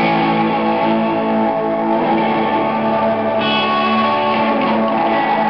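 Live rock band playing: electric guitars and bass holding steady, sustained chords.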